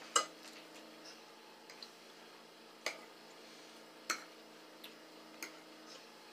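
Eating at a table: a handful of sharp, separate clicks and ticks of forks, dishes and mouths, the loudest about a quarter second in, over a faint steady hum.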